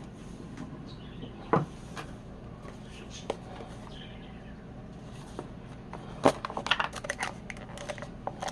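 Scattered sharp clicks and knocks of a small metal hand tool being handled, with a quick run of clicks about six seconds in, over a steady low hum.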